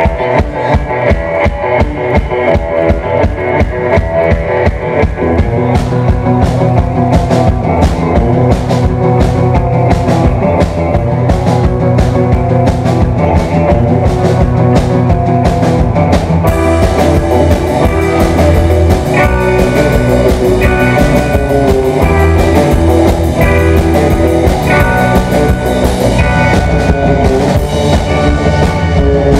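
Live instrumental rock band playing loud: electric guitars over a drum kit keeping a steady beat. The drums come in right at the start, and the cymbals get busier about halfway through.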